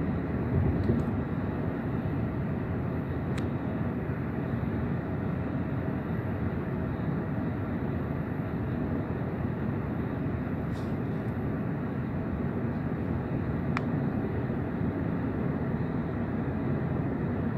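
Steady road and engine noise of a car driving at highway speed, heard from inside the cabin, with a couple of faint ticks.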